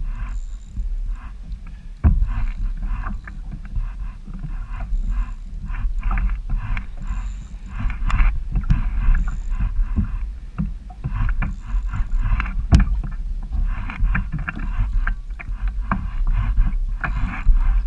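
Water splashing and slapping against a kayak hull in irregular bursts, over a steady low wind rumble on the microphone, with a few sharp knocks.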